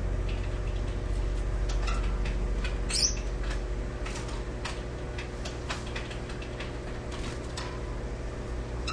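Gouldian finches giving short, scattered chirps and clicks, with one sharper rising chirp about three seconds in, over a steady low hum.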